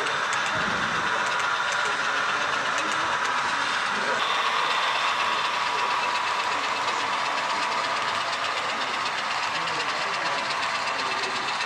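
HO-scale model freight train rolling past on the layout track: a steady rolling hum of the cars' wheels with light clicking over the rail joints.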